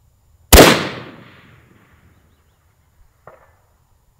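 Single unsuppressed rifle shot from a Desert Tech SRS A2 bullpup bolt-action in 6.5 Creedmoor, a sharp crack whose echo trails off over about a second. A faint, short metallic ping follows near the end as the bullet strikes the distant steel target.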